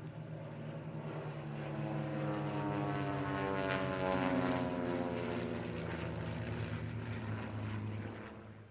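Piston-engined WWII fighter flying past: the propeller engine note grows louder to a peak about four seconds in and drops in pitch as it passes, then fades and cuts off near the end.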